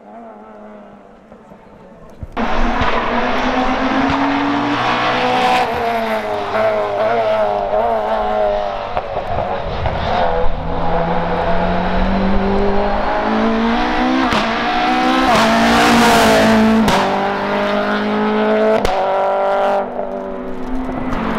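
Racing Renault Clio's engine at full throttle on a hillclimb run, pulling hard, with the pitch climbing and dropping back at each gear change. About two seconds in, it jumps from faint and distant to loud and close.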